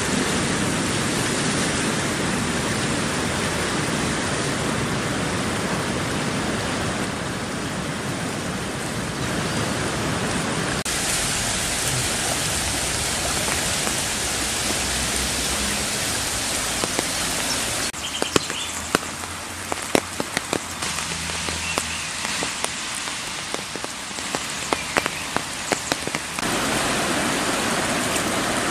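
Steady rushing noise of rain and a swollen, fast-flowing river in flood. Scattered sharp taps come through in the later part.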